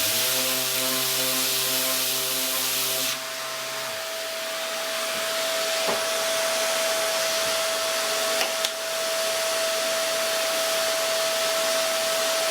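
Electric sander running steadily on a wooden pinball playfield, its motor giving a constant high whine over the hiss of coarse sandpaper on wood and plastic inserts. A lower hum sounds for the first three seconds or so and then stops.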